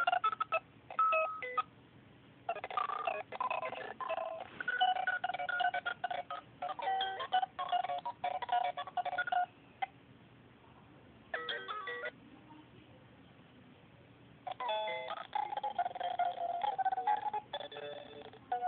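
Circuit-bent alarm clock sound circuit putting out glitchy electronic beeps and tone runs that jump between pitches. The tones come in bursts broken by a few short pauses.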